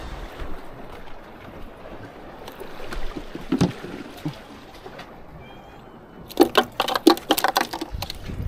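Strong wind buffeting the microphone over water, with a quick run of loud clatter about six seconds in.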